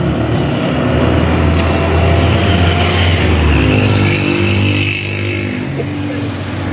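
A road vehicle's engine running close by, its tone shifting about halfway through.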